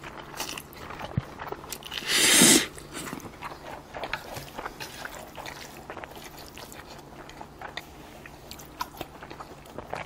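A person eating spicy mixed ramen noodles (bibim-myeon) with chopsticks: one loud slurp of noodles about two seconds in, otherwise chewing with many small wet clicks.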